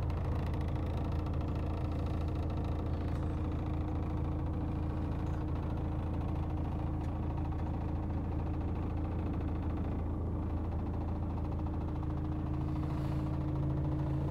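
DAF CF440 truck's PACCAR MX-11 straight-six diesel idling with a steady low hum, heard from inside the cab.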